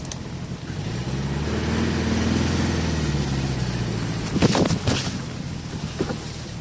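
ZAZ-968 Zaporozhets' air-cooled V4 engine revving up under load, holding for a couple of seconds, then easing off. About four and a half seconds in comes a loud clattering knock, with a smaller knock about a second later.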